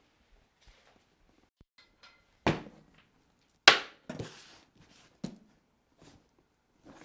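A cardboard box being set down on a tabletop and handled: two sharp thumps a little over a second apart, the second the loudest, followed by a short rustle and a lighter knock.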